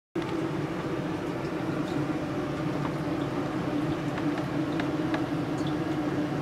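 Steady mechanical hum with a constant low drone, like an appliance running in a small room, cutting in from silence just after the start.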